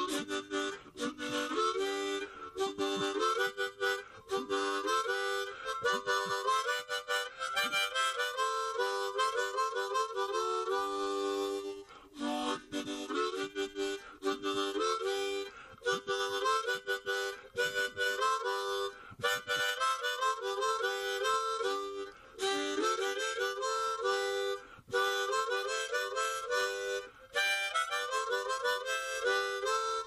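Harmonica music: a tune of quick, short notes.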